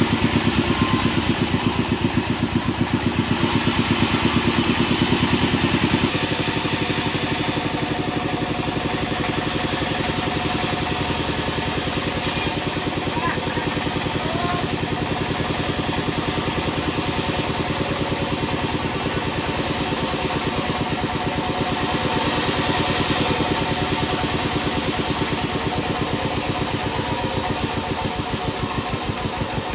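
Band sawmill machine running steadily, a loud drone with a rapid even pulsing, which drops a little in loudness about six seconds in.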